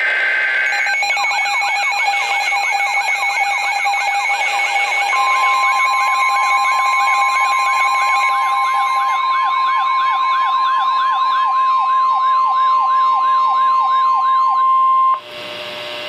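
Emergency alert tones: a weather radio's SAME data bursts, then several electronic sirens wailing over one another in repeated rising sweeps. About five seconds in, the steady 1050 Hz weather-radio warning alarm tone joins them, and everything cuts off suddenly near the end.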